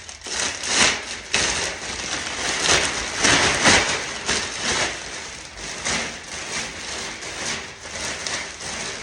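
Plastic bag rustling and crinkling as it is handled during plaster debris cleanup: an irregular run of rustles, busiest a few seconds in.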